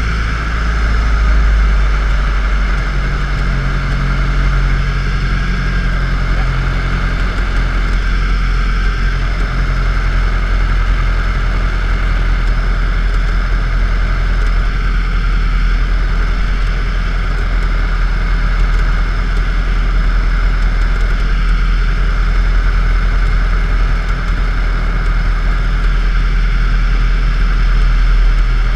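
DHC-1 Chipmunk's piston engine and propeller running steadily in flight, heard from inside the cockpit with air rushing over the canopy: an even drone with a deep rumble underneath.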